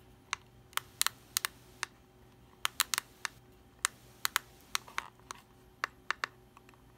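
Plastic push-buttons on an SF-912 digital crane scale clicking under a thumb, pressed again and again in quick, irregular clicks. The scale stays dead and never switches on.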